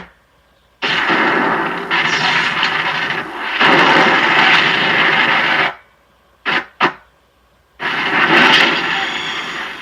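Film-trailer sound effects: loud bursts of harsh noise that start and cut off suddenly, with two sharp hits in the gap between them, in the style of a spacecraft in trouble.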